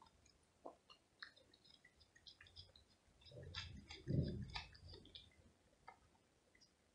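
A cat eating from a plate: soft chewing with scattered small clicks, busier in the middle, with a dull bump about four seconds in.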